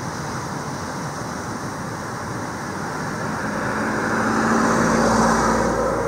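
Steady background rush that swells from about halfway through, a low hum rising with it and peaking near the end.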